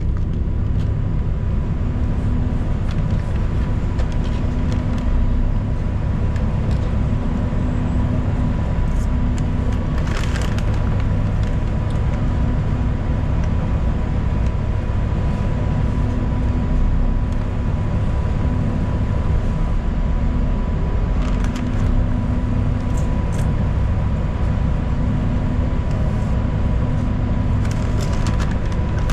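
Ride inside a city transit bus: steady engine and road rumble, with a thin steady whine and a few brief rattles or clicks from the cabin.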